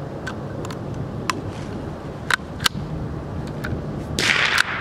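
Sharp metallic clicks from hands handling a scoped rifle's action, about six spread over the seconds, then a short scraping rush near the end.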